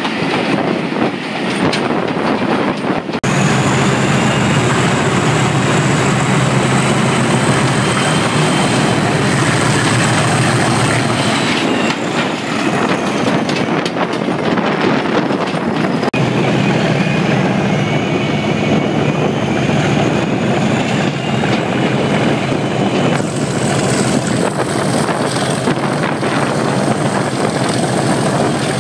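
Class 37 diesel locomotive's English Electric V12 engine working hard under power, heard close up from the coach behind it, with its turbocharger whistling. The power comes on sharply about three seconds in. Around the middle the whistle falls away in pitch, then it climbs back and holds.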